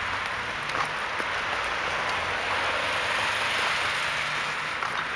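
Steady hiss of road traffic from the lamp-lit street alongside, with a few faint crunches of footsteps in snow about a second in.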